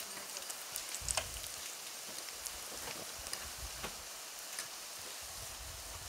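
Ciuruși (fried-dough pastries) deep-frying in hot oil in a pan: a steady sizzle with scattered crackles and pops, and a few sharper clicks about a second in.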